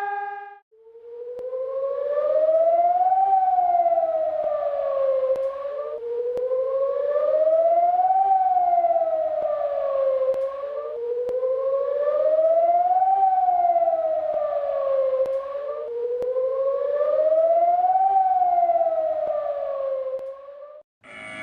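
Civil defense warning siren wailing. Its pitch slowly rises, then falls, in four even cycles of about five seconds each, and it stops shortly before a different alarm begins.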